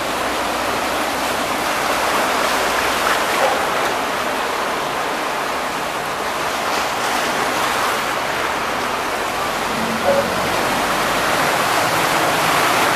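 Steady rush of floodwater churning in a flooded street, with splashing as a car and then a city bus plough through it; the bus passes close near the end.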